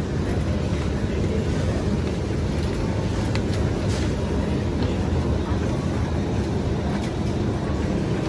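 Wire shopping trolley being pushed along a supermarket aisle: a steady low rumble from its rolling wheels.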